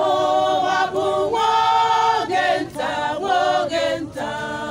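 A church choir, mostly women, singing unaccompanied in several voices, holding long notes in phrases with short breaths between them, a little quieter near the end.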